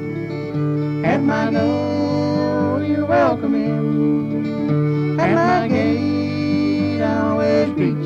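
Bluegrass-style acoustic music led by guitar, played as an instrumental passage with no singing: plucked notes over a walking bass line, with a higher sliding melody note about every two seconds.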